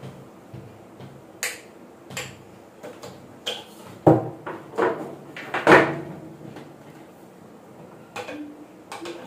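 Clicks and knocks from a countertop electric oven as its control knobs are turned and set, with three louder knocks about halfway through.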